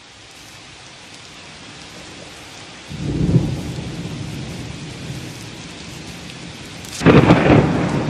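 Steady rain with thunder: a low rumble about three seconds in, then a louder crack and rumble about seven seconds in that dies away over the next two seconds.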